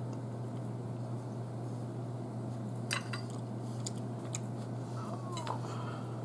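Steel knife and fork clinking against a china dinner plate while steak is being cut, a few separate sharp clinks in the middle, with a short squeak of metal on the plate near the end. A steady low hum runs underneath.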